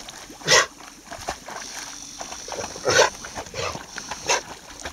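Young bracco italiano puppy swimming and giving several short cries, the loudest about half a second in and at about three seconds, with two weaker ones soon after.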